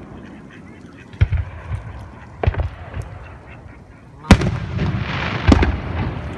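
Aerial firework shells bursting: four sharp booms, the loudest a little past four seconds in, followed by more than a second of hissing noise.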